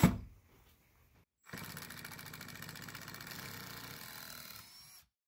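A sharp knock, then about a second and a half later a Milwaukee M18 brushed impact driver (2656-20) hammers steadily with a fast, even rattle for about three and a half seconds while backing a screw out of a board, then stops. Its impact mechanism engages at low speed without stalling.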